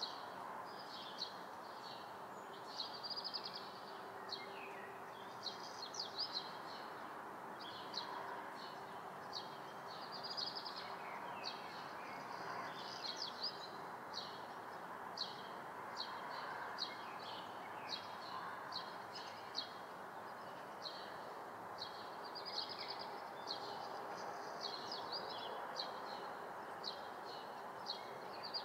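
Room ambience: many small birds chirping and twittering outside in quick, repeated short calls, over a steady even background noise.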